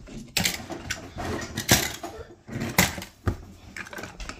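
Die-cast toy cars pushed off a ledge one after another into a plastic tub of water crowded with other toy cars. The result is a run of splashes and clattering metal-on-plastic knocks, with about four sharp strikes.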